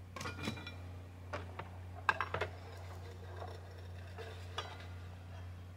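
Light metal clinks and clicks as a chop saw's 45-degree bevel stop bolt is adjusted and the saw head is tilted against the stop. The clicks are scattered and loudest in a quick cluster about two seconds in, over a low steady hum.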